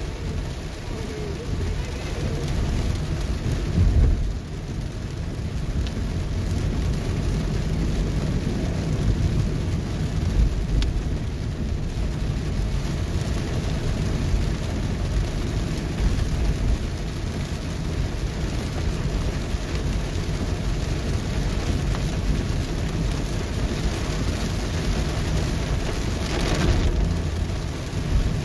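Heavy rain beating on a car's roof and windshield, heard from inside the moving car over a deep, steady rumble. There is a louder low thump about four seconds in and a brief burst of hiss near the end.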